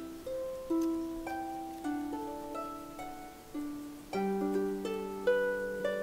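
Background music: a gentle melody of plucked string notes, each struck and dying away, several a second.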